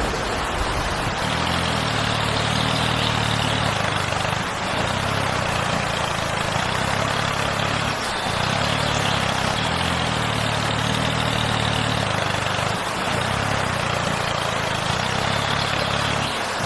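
A steady engine-like motor running with a low hum, dropping out briefly a few times.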